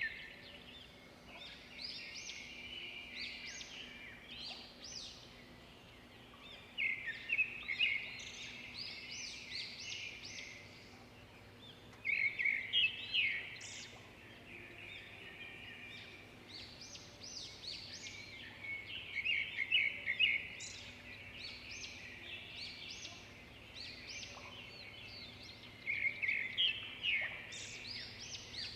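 Many songbirds chirping and trilling together in a busy chorus, with rapid repeated notes and louder flurries every several seconds.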